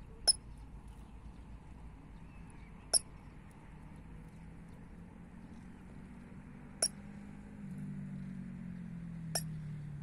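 Eurasian coot calling: four short, sharp single notes spaced a few seconds apart, over a faint low drone that grows a little louder near the end.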